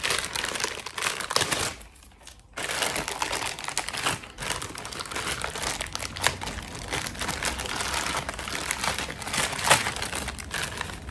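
Packaging crinkling and rustling as a small fidget toy is unwrapped by hand, in a burst, a short pause about two seconds in, then steady crackling with sharp snaps.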